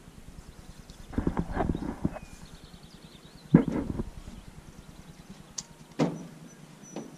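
Hollow knocks and clunks on the hull of a small fishing boat, as gear and feet shift about in it. A cluster of thumps comes about a second in, a sharp loud knock at about three and a half seconds, and two single knocks near the end.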